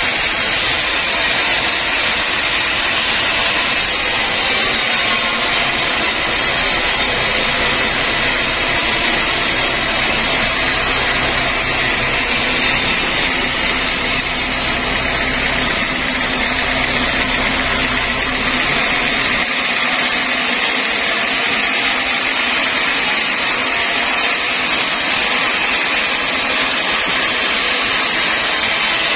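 Vertical band sawmill running, a steady loud machine whir with a hiss. The low rumble drops away about two-thirds of the way through.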